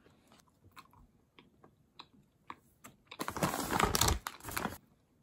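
A packet of dried mango slices being handled: scattered small clicks and taps, then a loud rustle of the packaging for about a second and a half, starting about three seconds in.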